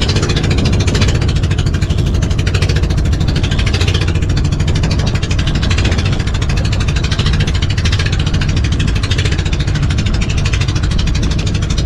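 Small fishing boat's engine running steadily at a constant speed, a dense, even chugging with no change in pace.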